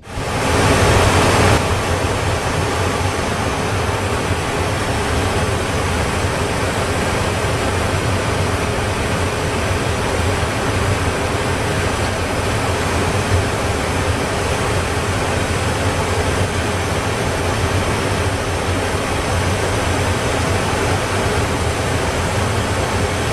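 Steady vehicle cabin noise: an even rush with a low hum, a little louder for the first second or so.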